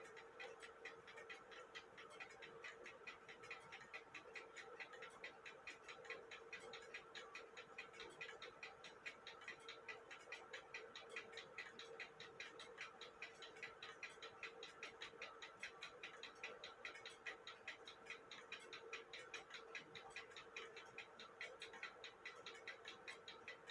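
Faint, quick, even ticking of an 1880 Fleig hunter's cuckoo clock movement running on a test stand, its crutch freshly adjusted to keep it going. A faint steady hum lies under the ticks.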